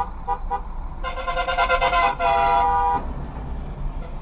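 Car horns honking in traffic: a few short beeps at the start, then a long horn blast of about two seconds from about a second in, shifting in pitch partway through, over the low rumble of traffic.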